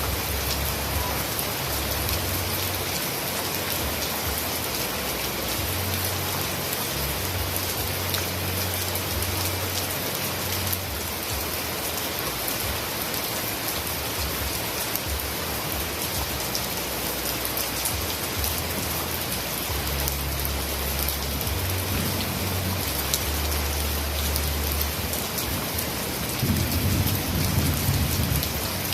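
Steady heavy rain, a dense even hiss of falling drops. A low rumble comes and goes beneath it and swells near the end.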